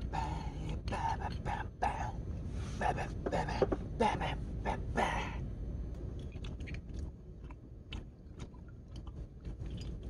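A man chewing and making mouth noises while eating and drinking, then small scattered clicks of a glass soju bottle and glass being handled in the second half.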